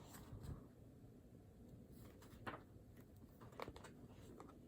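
Near silence: room tone with a few faint, short ticks.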